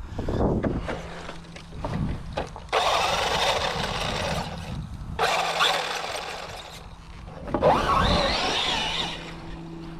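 Traxxas Maxx Slash RC truck with a Hobbywing Max6 brushless motor and ESC being driven hard, the motor whining in three long bursts of throttle with a whine that rises and falls near the end.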